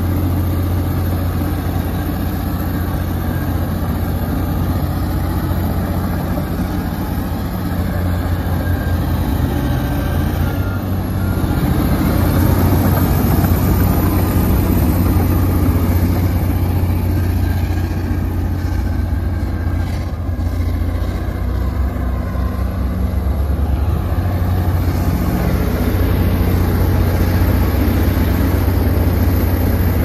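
Komatsu D85EX crawler bulldozer's six-cylinder diesel engine running steadily with a deep, even hum, a little louder from about twelve seconds in.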